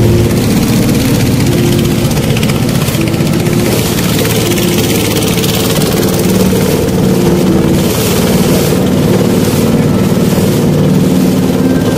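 Small boat's engine running steadily at a constant pace, with the noise of the hull moving through the water.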